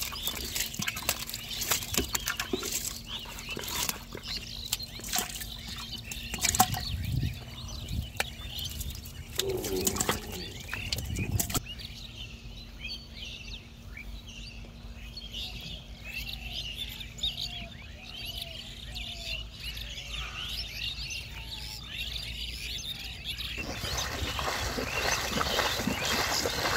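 Trapped catfish thrashing in a shallow mud trap, with irregular wet slaps and knocks. Then birds chirping, and near the end splashing as someone wades quickly through shallow water.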